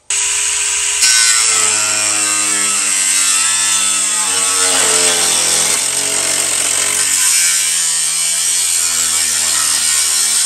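Angle grinder cutting and trimming sheet steel to a straight edge. It starts abruptly, a harsh grinding hiss strengthens about a second in, and the motor's pitch shifts as it is pushed into the metal.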